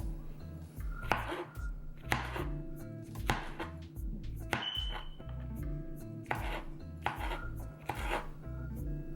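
Kitchen knife slicing vegetables on a cutting board, about eight separate strokes roughly a second apart.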